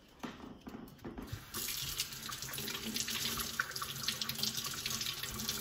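Kitchen faucet turned on about a second and a half in, water running into a stainless steel sink and splashing over garlic bulbs rinsed by hand. A few faint handling knocks come before the water starts.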